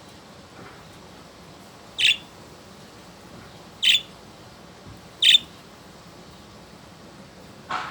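Budgerigars giving short, sharp squawking calls: three loud high chirps spaced a second or two apart, then a lower call near the end.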